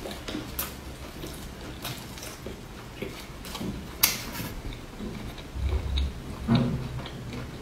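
Close-miked eating sounds: a lettuce leaf and a piece of spiral-cut fried sausage handled and wrapped, a sharp bite about halfway through, then wet chewing with small mouth clicks.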